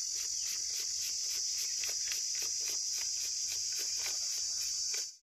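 Steady high-pitched drone of insects, with a quick run of light flicks from paper banknotes being counted by hand, about four or five a second. It all cuts off suddenly near the end.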